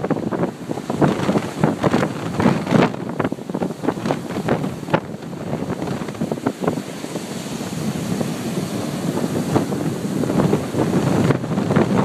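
Hurricane wind buffeting the microphone in irregular loud gusts, with surf rushing underneath.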